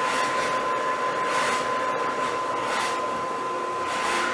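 3D Systems ProJet 660Pro full-colour powder-and-ink 3D printer running a build: a steady mechanical whir with a constant high tone, and a hiss that swells and fades every second or so.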